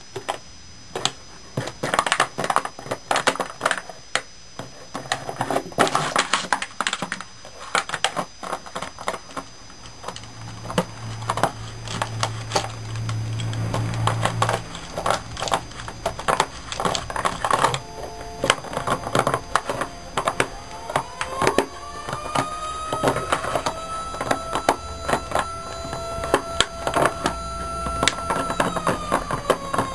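Dalmatian chewing and crushing a plastic PET bottle: rapid, irregular crackling and crunching of thin plastic. In the second half a steady pitched hum with overtones comes in, rises in pitch, holds, and falls again near the end.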